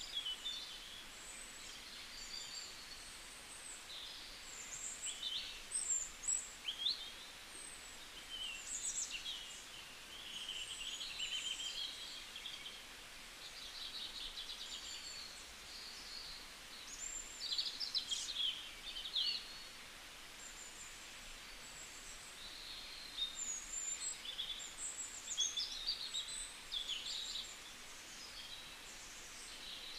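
Small birds chirping and singing over a faint steady hiss: many short high whistles, quick rising and falling notes and rapid trills, one after another.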